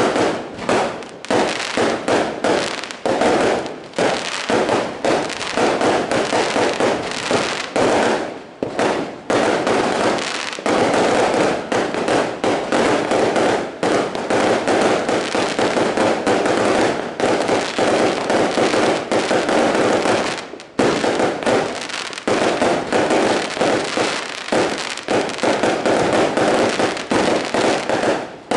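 Aerial fireworks going off in a dense, nearly continuous barrage of bangs and crackles, with a brief lull about twenty seconds in.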